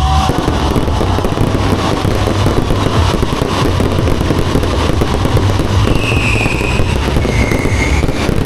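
Fireworks going off in a dense, continuous crackle that replaces the show's music just after the start, with two brief high whistles over it near the end.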